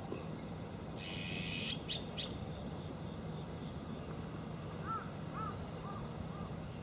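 Azure-winged magpie giving a harsh, raspy call about a second in, followed by two short, sharp notes. From about five seconds in, a run of several short, soft, arched notes follows.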